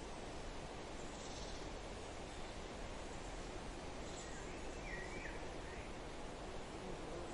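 Steady wind through forest trees, rustling, with a few birds calling: brief high chirps about a second in and a short run of warbled notes about four to five seconds in.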